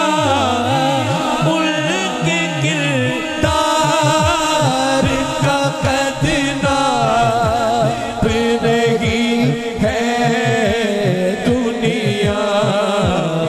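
A man singing a devotional naat through a microphone and sound system, holding long wavering notes that slide up and down, over a steady low beat.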